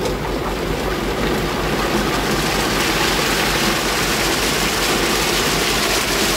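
A concrete mixer's engine running steadily while wet concrete pours out of the drum and slides down the chute. The rush of concrete builds over the first couple of seconds as the flow picks up, then holds.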